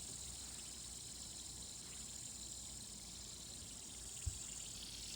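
Fidget spinner spinning freely at high speed, a faint steady high-pitched whir as it winds down. One soft low knock about four seconds in.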